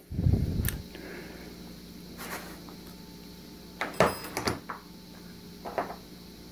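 Torque wrench with a long extension and socket worked on a piston cooling jet bolt in a bare cast-iron engine block: a low rumble at the start, then scattered sharp metal clicks and clanks, the loudest, with a ringing edge, about four seconds in.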